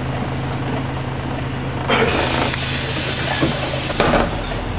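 City bus idling with a steady low engine hum; about two seconds in, compressed air hisses out loudly for over a second, and a shorter hiss follows about four seconds in: the bus's pneumatic air system venting.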